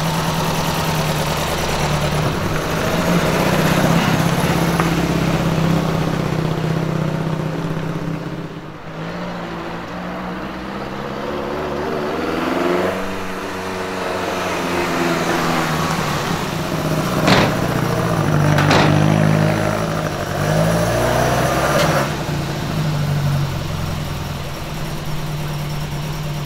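The freshly rebuilt 1.6-litre narrow-angle V4 engine of a Lancia Fulvia Zagato 1600 running, its pitch rising and falling with the throttle. Two sharp knocks come about two thirds of the way through.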